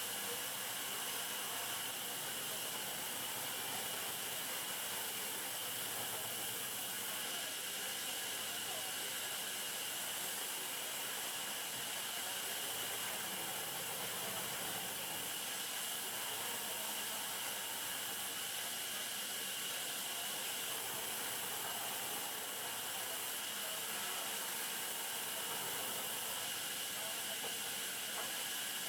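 Steady hissing machine noise with a faint constant high tone, from sawmill machinery running.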